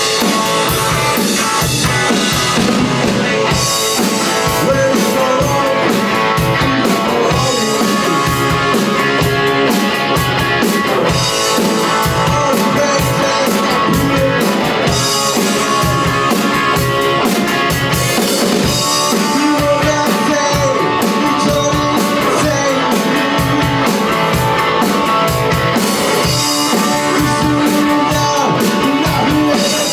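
Rock played on electric guitar through a 1967 Supro Thunderbolt amplifier, with a drum kit keeping a steady beat. The guitar notes bend and slide in pitch throughout.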